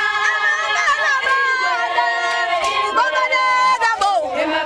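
A large group of Zulu women's voices singing together, many overlapping voices holding and bending their notes, with a few sharp short sounds among them.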